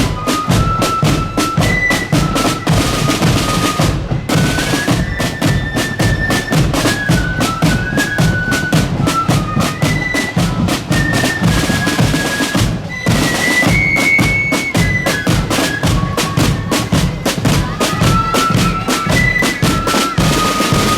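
Marching flute band playing a tune: the flutes carry a single high melody in unison over rapid, constant snare drumming and bass drum beats.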